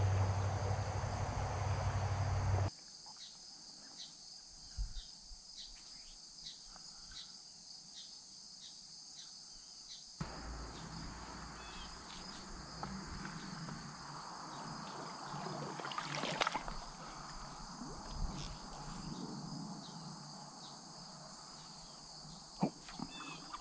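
Insects chirring steadily in a high continuous drone. A loud low rumble lies over it for the first few seconds and cuts off abruptly; a softer rushing hiss comes back about ten seconds in.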